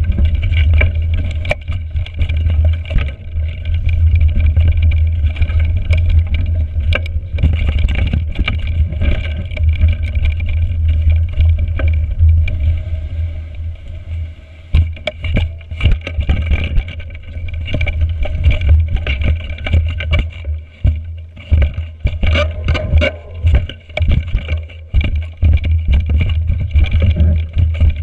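Mountain bike ride noise on a frozen, bumpy trail: a steady low wind rumble on the action-camera microphone, with frequent clicks and knocks from the bike rattling over roots and ruts. The rumble eases for moments near the middle, and the knocks come thicker in the second half.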